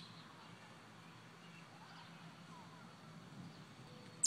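Faint outdoor background with a low hum, then right at the end a single short, loud, high-pitched chirp from a fledgling American robin.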